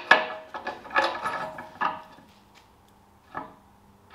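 Metal clanks and knocks from a Ferguson TE20 engine being turned over on its engine stand: about five ringing knocks in the first two seconds, then one more about three and a half seconds in.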